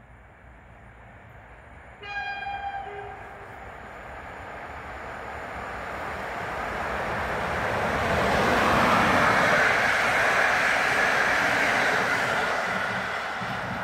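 An EP07 electric locomotive sounds one short horn blast about two seconds in. The locomotive and its passenger coaches then roll past, the rumble of wheels on rail growing steadily to its loudest over the second half.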